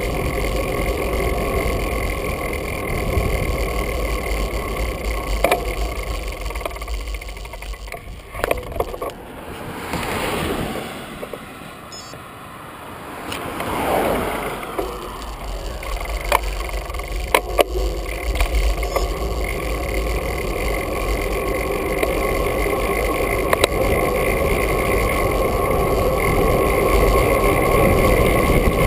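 Wind rushing over the microphone of a camera mounted on a bicycle rolling downhill, with road noise underneath. Part way through the wind eases, a car passes close by with a rise and fall in sound, and then the wind builds again as speed picks up.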